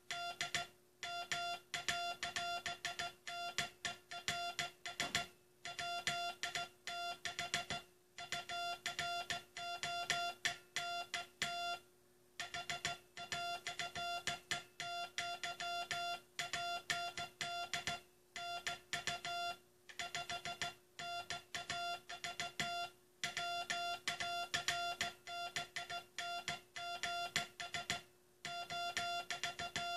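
Hand-sent Morse code: a single mid-pitched beep keyed on and off in dots and dashes, with longer gaps between words, spelling out the U.S. Coast Guard's last Morse message. A faint steady hum runs beneath.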